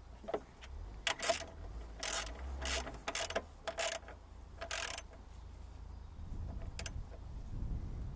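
Ratchet wrench clicking in about six short strokes as nuts on a front shock absorber are tightened.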